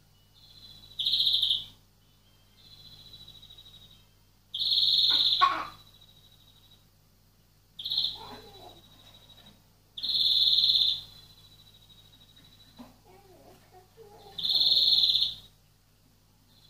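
European greenfinch (florya) calling: a loud, drawn-out, high note about a second long repeated five times, every three to four seconds, with fainter held notes at the same pitch in between. A steady low electrical hum runs underneath.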